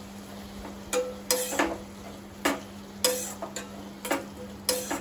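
Steel spoon stirring and scraping in a stainless steel pot of onion, drumstick leaves and masala frying in oil, with about seven sharp metal clinks at irregular intervals over a faint sizzle. A steady low hum runs underneath.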